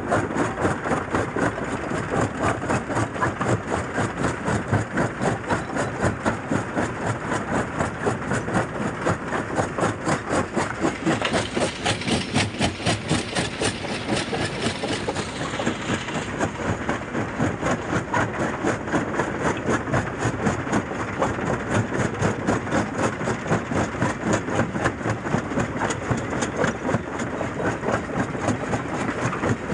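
Jaw crusher running with stone blocks in its chamber, the jaw working in a steady rhythmic beat as the rock is cracked and ground. For a few seconds around the middle the crunching turns harsher and hissier.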